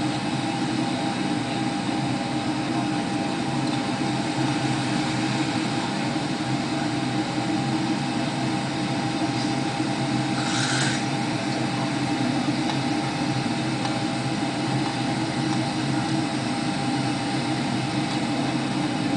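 Airliner cabin noise during the approach: the steady rumble and rush of the jet engines and airflow, with a brief hiss about ten seconds in.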